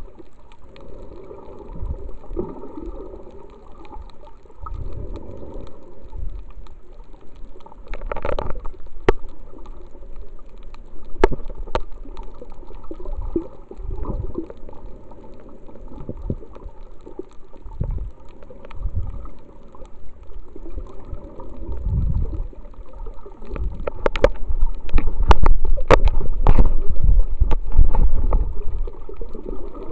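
Underwater water movement picked up by a camera in a waterproof housing: muffled sloshing and gurgling with irregular low thumps and scattered sharp clicks. It grows louder and busier near the end, as a snorkeler comes right up to the camera.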